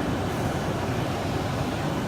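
Steady, even rumbling background noise of a machine-tool exhibition hall, with no distinct knocks or tones standing out.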